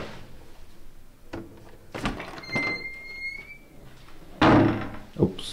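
A small fridge door and then a wooden bathroom door being opened, with a few knocks and clicks. A high squeak lasting about a second and a half comes midway, and a loud brief rushing scrape comes near the end.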